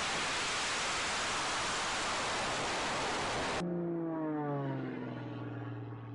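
A loud, steady rushing roar, which cuts off suddenly about three and a half seconds in. Then a single-engine propeller aerobatic plane, a Zivko Edge 540, flies past: its engine pitch falls as it goes by and settles into a steady, fading drone.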